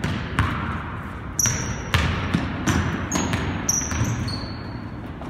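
Basketball dribbled hard on a hardwood gym floor: sharp bounces about every half second, with short high-pitched sneaker squeaks from about a second and a half in.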